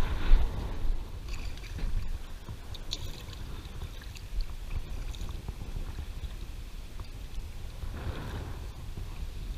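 Kayak paddle strokes dipping and splashing in shallow creek water, with water sloshing against the hull, over a steady low rumble. A couple of knocks in the first second.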